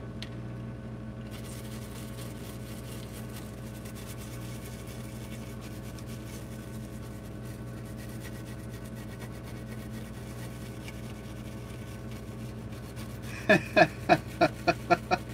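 A steady low hum runs until, near the end, a toothbrush starts scrubbing a laptop circuit board wet with isopropyl alcohol in quick, even strokes, about five a second.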